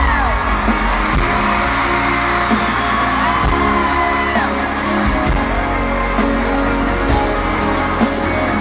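Live pop band playing through concert speakers, with singing and fans in the crowd screaming high over the music.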